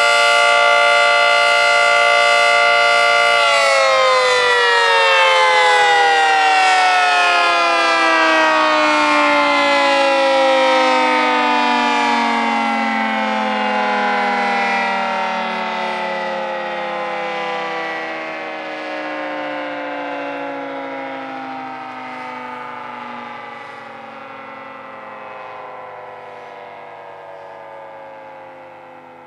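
Federal Signal 2T22 dual-tone outdoor warning siren holding the steady chord of its Alert signal, then, about three and a half seconds in, cutting off and winding down: its pitch falls slowly and it fades as the rotors coast to a stop.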